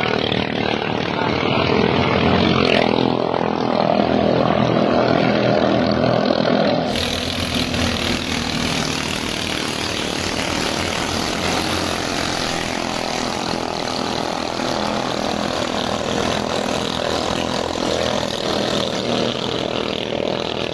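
Engines of ketinting longtail racing boats running flat out on the water, a loud continuous buzzing drone. About seven seconds in the sound changes abruptly to a steadier, hissier drone.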